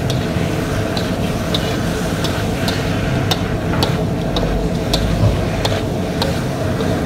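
Cooking spoon stirring and stir-frying chicken, tomatoes and spices in a karahi, clicking and scraping against the pan in an uneven rhythm, about once a second or a little faster. Under it is a faint frying sizzle and a steady low rumble.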